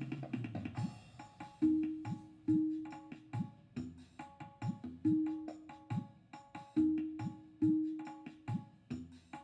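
Background music with a steady, repeating drum rhythm: sharp strokes at even spacing, with short pitched notes between them.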